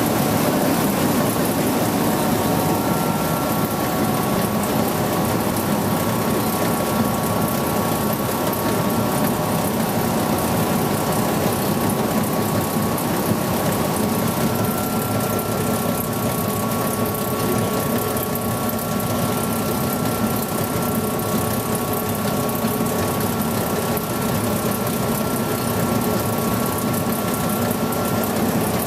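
BRONTO SP-1000 oil cake crusher running, its toothed rotor turning and breaking up oilseed press cake: a steady mechanical noise with a faint high whine that drops out for a few seconds about a third of the way in.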